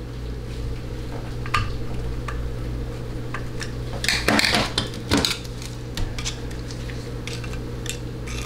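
Light metal clicks and scrapes of a pick working on a TH475 automatic transmission valve body on a steel tray. About four seconds in comes a louder clatter and scrape lasting about a second, as the valve body is shifted over on the tray. A steady low hum runs underneath.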